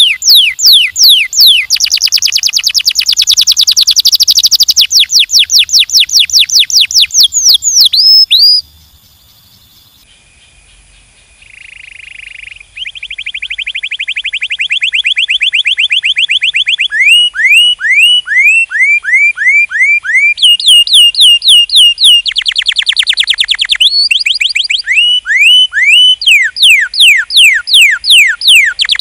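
Domestic canary singing: rapid trills of repeated sweeping notes, each run at its own speed and pitch. The song stops for about four seconds a third of the way in, then starts again with new runs.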